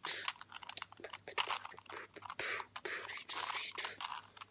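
A 3x3 Rubik's Cube being turned quickly in the hands: rapid, irregular clicking and scraping of its plastic layers as they rotate.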